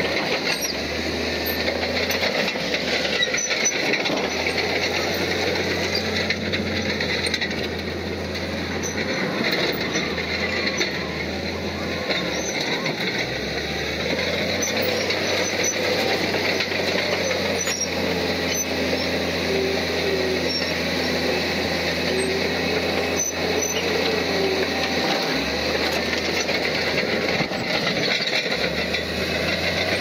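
Heavy diesel earthmoving machinery running steadily, with a faint wavering squeal midway through.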